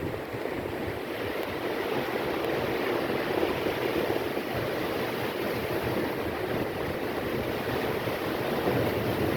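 Storm waves crashing and splashing in a continuous rush of water noise, with wind.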